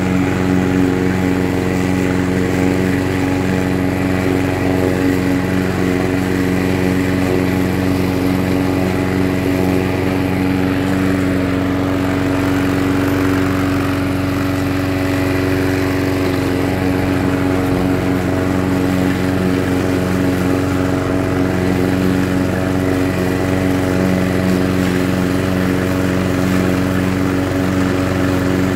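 Webb petrol walk-behind rotary lawnmower running at a steady, even engine speed while cutting grass.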